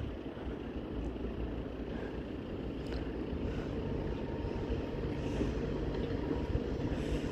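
Distant rumble of an approaching Moscow Metro train on an open-air section of track, growing slowly louder, with a faint steady whine joining in near the end.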